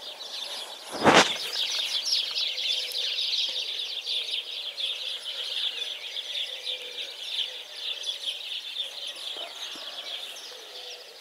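A steady chorus of many birds chirping and singing, with a brief thump about a second in.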